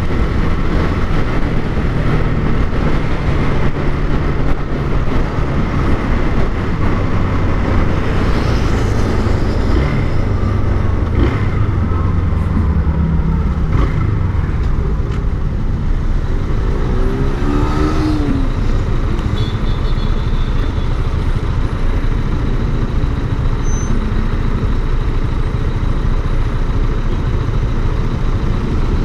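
Motorcycle under way in road traffic: engine running steadily under a dense rumble of road noise. About two-thirds of the way through, a short sound rises and falls in pitch.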